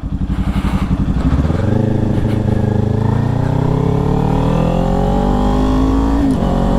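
Sport motorcycle engine pulling hard, its pitch climbing steadily as it gathers speed, with one upshift about six seconds in where the pitch drops and starts rising again.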